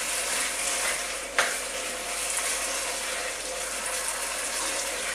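Diced pork frying in a pot, a steady sizzle as it browns with flour dusted over it. A single sharp click about one and a half seconds in.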